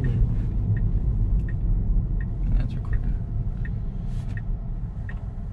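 Low road and tyre rumble inside a Tesla's cabin as the electric car rolls slowly and slows for a stop, growing quieter as it slows. A faint tick sounds about every 0.7 s.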